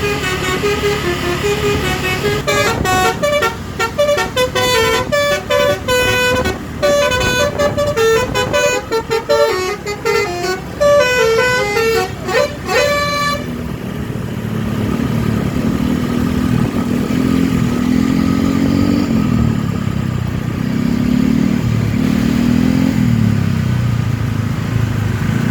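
Bus telolet horn, a set of air horns played through a V4 melody module, plays a fast tune of stepped notes, then cuts off about thirteen seconds in. After that an engine runs with its pitch rising and falling.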